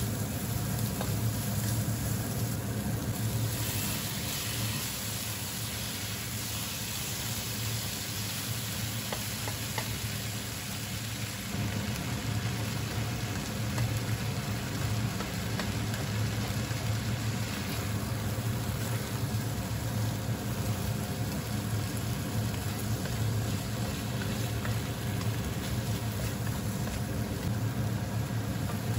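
Onion, chicken breast and egg sizzling in a nonstick wok while a spatula stirs them, over a steady low mechanical hum. The sizzle is brightest a few seconds in.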